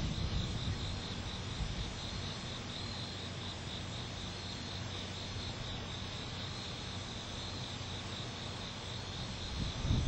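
Crickets chirping in a steady, pulsing rhythm under a thunderstorm. A low rumble of thunder fades over the first couple of seconds and swells again near the end, as lightning flashes.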